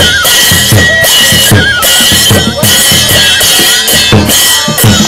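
Live Newar processional band playing for a Lakhey dance: a drum beaten in a steady pattern, about two to three strikes a second, each stroke dropping in pitch, with cymbals clashing almost continuously. A thin, high held tone sounds above them.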